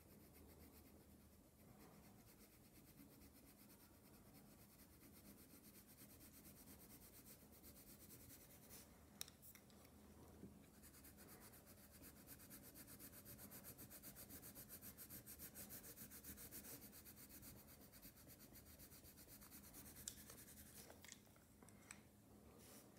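Faint, fast scratching of a coloured pencil shading on paper in quick back-and-forth strokes, a little louder midway, with a couple of light clicks.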